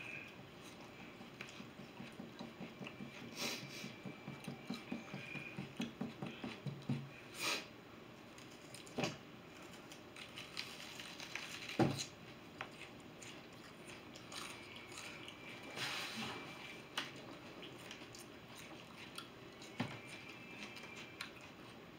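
Raw whole onions being bitten and chewed, with a run of steady chewing a few seconds in at about three chews a second and sharp crunches scattered throughout.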